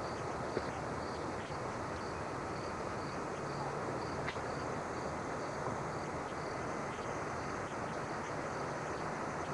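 Crickets or similar insects chirping in a steady rhythm, about two chirps a second, over an even background hiss.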